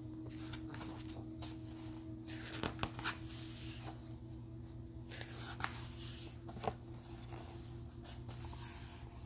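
Pages of a hardcover picture book being turned by hand: several short papery swishes and rustles, over a faint steady hum.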